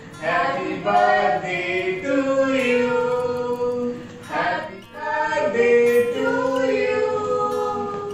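Singing with long held notes that slide from one pitch to the next, and no clear words.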